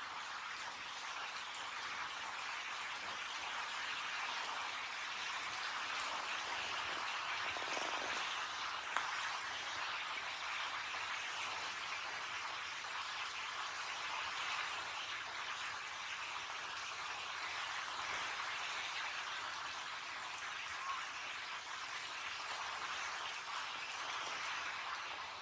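Heavy rain falling steadily: an even, unbroken hiss of raindrops.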